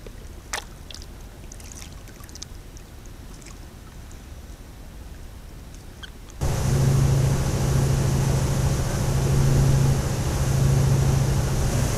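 Sea water lapping at the surface with a few small splashes; about six seconds in it switches abruptly to a dive boat's engine running steadily with a low hum, over the rush of water past the hull.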